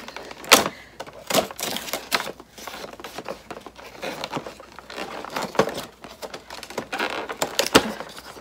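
Cardboard packaging of an advent calendar being handled as its first door is opened: irregular crinkling, tearing and tapping, with sharp clicks scattered throughout.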